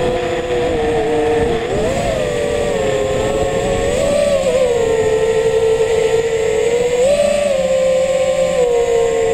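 The brushless motors and propellers of an Eachine Wizard X220 FPV racing quadcopter whine steadily in flight. The pitch climbs briefly with bursts of throttle about two, four and seven seconds in, then drops back.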